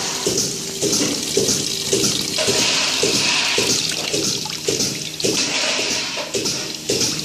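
Milk running from a dairy pipeline's drain outlet and splashing, with a regular surge about twice a second.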